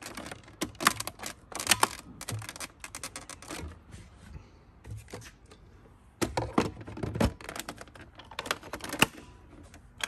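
Hard plastic clicks and knocks as a Shark Navigator Lift-Away upright vacuum is put back together: the front filter grille is pressed into place, and the dust cup is set back onto the body about six seconds in. The sharp clicks come in irregular clusters with short gaps between them.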